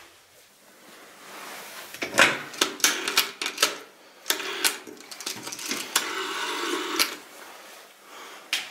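Rotary dial of an old black Bakelite desk telephone being wound round and let run back, several times over: a string of clicks and short whirrs starting about two seconds in.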